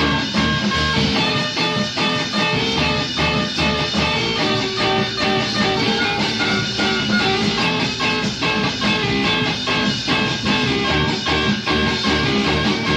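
Rock band music: guitar over a steady drum beat.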